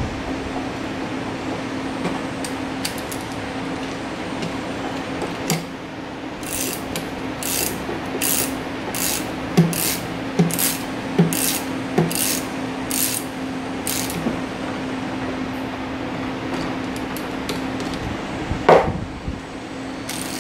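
A small metal hand tool worked on a hedge trimmer in a run of about a dozen short, even strokes, roughly one every two-thirds of a second, over a steady low hum. A single knock comes near the end.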